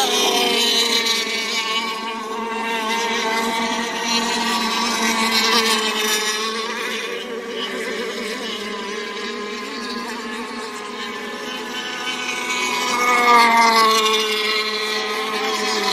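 Radio-controlled racing boats running flat out on the water, a continuous engine whine whose pitch bends up and down as the boats pass, loudest about 13 seconds in.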